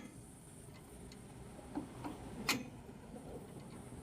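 A few sharp, isolated clicks of hand tools and metal parts being handled while the mower's front end is taken apart, the loudest one about two and a half seconds in.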